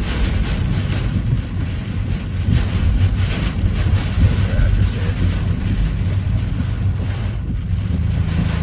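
Hurricane-force wind gusts buffeting a moving vehicle, heard from inside the cabin over the steady low rumble of the engine and tyres.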